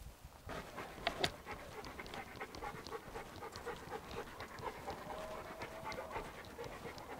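Dog panting rapidly and steadily, about three or four breaths a second, with a sharp click about a second in.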